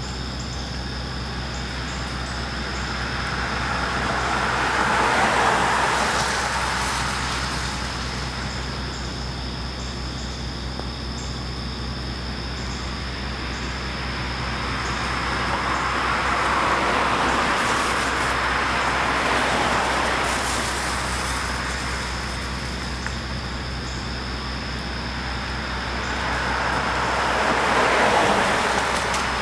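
Cars passing one after another on a wet street: three slow swells of tyre hiss that rise and fade, peaking about five, seventeen and twenty-eight seconds in, over a steady background hiss.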